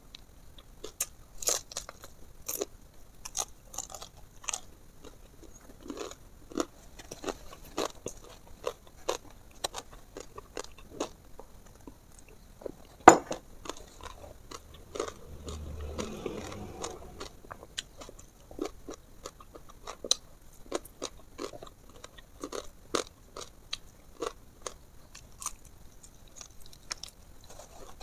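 Close-up chewing and biting of crispy fried whole fish, with irregular sharp crunches several times a second. One much louder crack comes about 13 seconds in.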